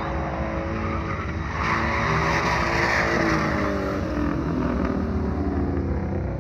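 A drifting car's engine revving, its pitch rising and falling, over the hiss and screech of spinning tires. The tire noise swells to its loudest about two to three seconds in.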